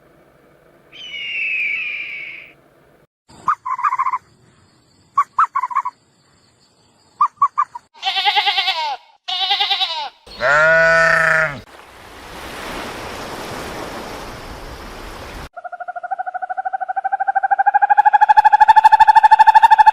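A series of different domestic animal calls played one after another: bleat-like calls, short chirping notes, a noisy stretch, and near the end a long pulsing call that grows louder.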